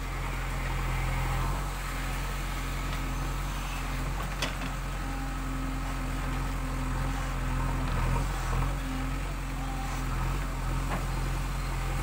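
A JCB 3DX backhoe loader's diesel engine runs steadily while the backhoe arm digs. There is a single sharp knock about four and a half seconds in.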